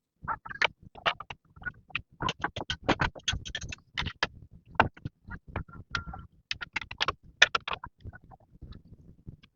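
Rapid, irregular sharp knocks and clicks, several a second.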